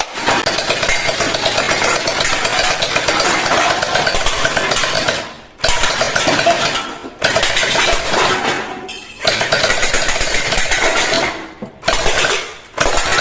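Toy machine gun firing in several long bursts of rapid rattle, separated by short pauses.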